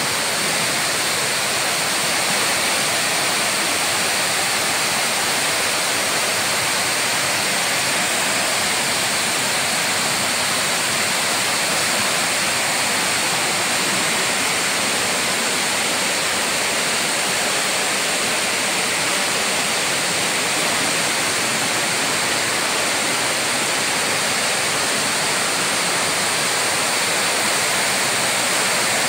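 Waterfall in high, muddy flow: water rushing and splashing down a rocky cascade in a steady, even rush that never changes.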